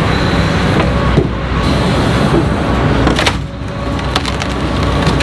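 Tracked excavator (about 20 tonnes) running steadily while its demolition sorting grab crunches, lifts and drops broken shed timber, with sharp wood cracks about a second in and again around three seconds.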